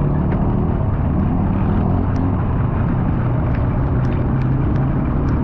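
Steady low rumble of wind and road noise while riding a bicycle, with a few faint ticks scattered through it.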